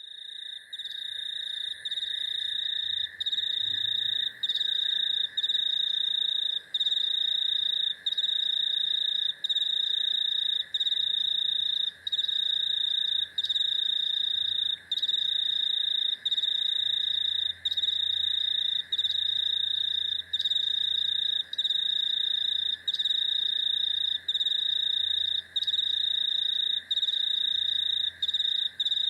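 Chorus of crickets and cicadas: a steady, high-pitched shrill trill broken by short pauses about every second and a half, over a lower continuous insect buzz. It fades in over the first couple of seconds.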